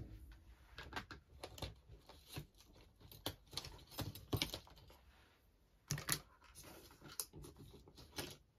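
Light, irregular clicks and taps of thin metal craft cutting dies and their packaging being handled and sorted.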